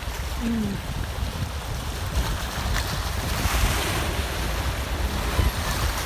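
Storm surf whipped up by a typhoon, waves washing and breaking on the shore, with strong wind buffeting the microphone as a low rumble. The wash swells louder about halfway through.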